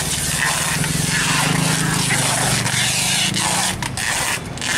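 An engine running steadily, with a few sharp knocks near the end.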